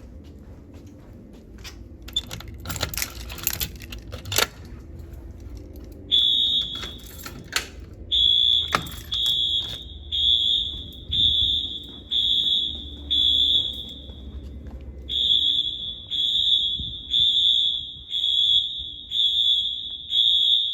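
Wheelock MT fire alarm horns sounding a high-pitched tone in even pulses, a little more than one a second, during a fire alarm system walk test; they start about six seconds in and briefly break off about two-thirds of the way through. Before the horns start, there is some clicking and rattling.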